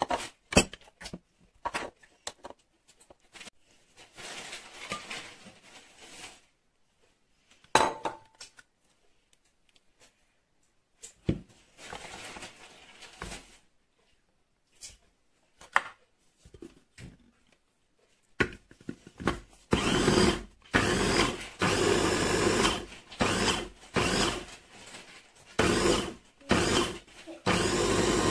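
Scattered clicks and scrapes of a spoon against a glass chopper bowl, then, about two-thirds of the way in, an electric mini food chopper's motor whirring in a run of short pulses as it blends a sticky peanut caramel mixture.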